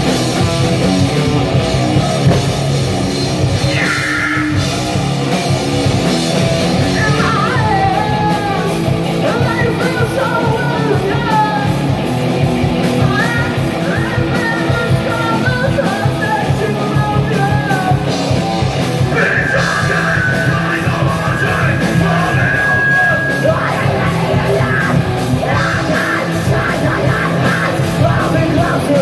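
Loud live heavy rock band: distorted electric guitars, bass guitar and a drum kit, with a singer yelling and singing over them from about a quarter of the way in.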